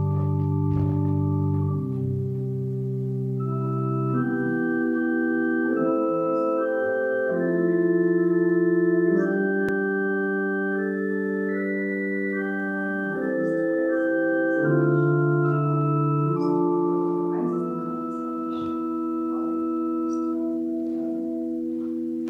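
Organ playing slow, held chords with a melody that climbs to its highest notes about halfway through and then falls back: communion music while the sacrament is given out.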